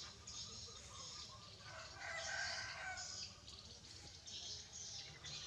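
A rooster crowing once, about two seconds in, one call lasting just over a second, over repeated short high chirps.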